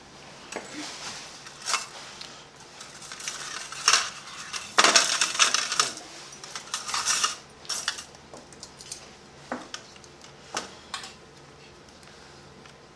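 Steel surgical instruments being handled: scattered metallic clinks and clicks, with a denser stretch of clatter and rustling about four to seven seconds in.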